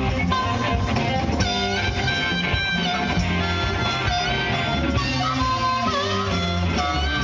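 Live band playing an instrumental passage: electric guitar over bass guitar and drums, with some bent notes.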